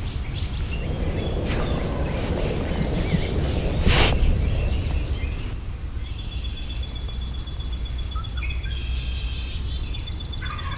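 Outdoor ambience with songbirds calling: a short falling chirp, a brief rush of noise about four seconds in, then high, rapid trills in two spells during the second half, over a steady low rumble.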